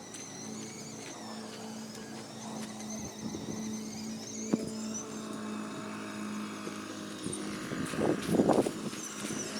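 Small electric ride-on ATV running, its motor giving a high thin whine that rises and falls with speed over a steady low hum. A sharp click about four and a half seconds in, and a few louder rough bursts near the end.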